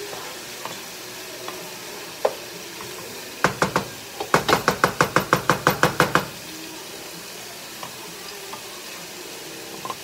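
Chayote squash and onion sizzling in coconut oil in a large pan as they are stirred with wooden spoons. In the middle come three sharp knocks, then a fast even run of about a dozen louder knocks, roughly six a second.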